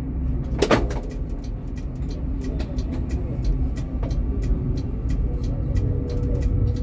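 Tram running with a steady low rumble and light regular ticking, about three ticks a second. A sharp clank rings out about a second in, and a steady tone comes in about five seconds in.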